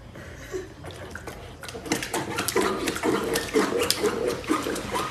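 A puppy splashing in its water bowl, pawing at the water with its front feet and dipping its muzzle in. The splashes are sparse at first and come in a quick irregular run from about two seconds in.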